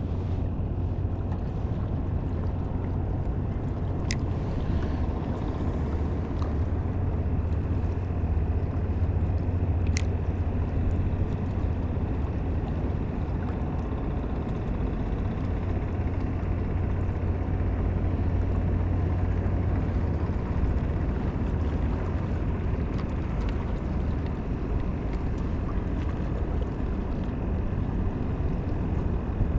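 Small boat's outboard motor running steadily with a low hum, with wind and water noise around it.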